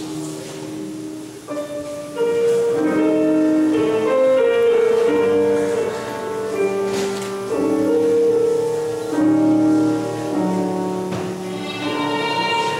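Slow, melodic instrumental music with long held notes, growing louder about two seconds in.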